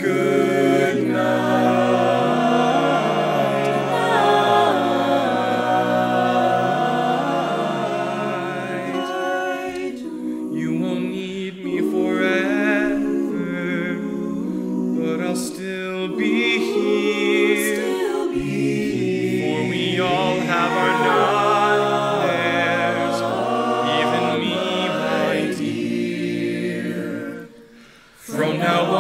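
A mixed a cappella vocal ensemble of sopranos, altos, tenors and basses singing in close harmony, with no instruments. About a second before the end the voices stop briefly, then come back in.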